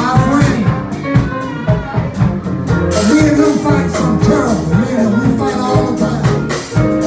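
Live soul band playing: a drum-kit beat with a pitched melody line over it.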